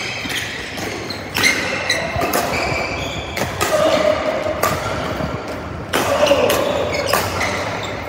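Badminton rackets striking a shuttlecock in a doubles rally, about four sharp cracks echoing in a large hall, with short squeaks of court shoes on the floor between the shots.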